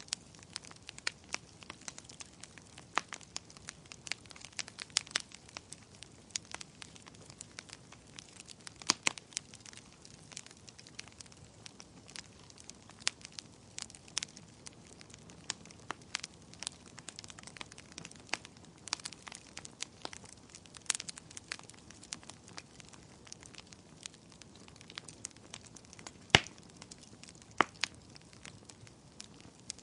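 Fire in a fireplace crackling: frequent irregular snaps and pops over a faint hiss, with one louder pop near the end.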